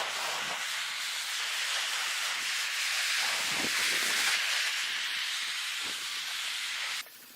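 Gas blowtorch hissing steadily as it scorches a wood surface, shutting off abruptly about seven seconds in.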